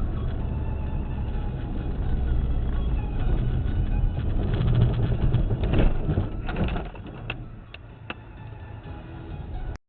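Low, steady rumble of a heavy machine's engine, with louder bursts a little past the middle and a few sharp knocks near the end before the sound cuts off suddenly.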